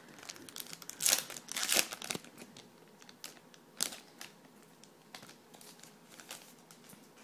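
Foil wrapper of a hockey card pack crinkling and tearing as it is opened by hand, loudest in a cluster of crackles in the first two seconds, then a few light ticks and rustles.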